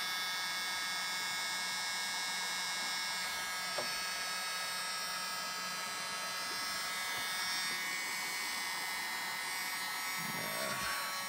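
Handheld electric heat gun running steadily, shrinking heat-shrink tubing over a spliced wire. Its fan gives an even rush of air with several steady high tones.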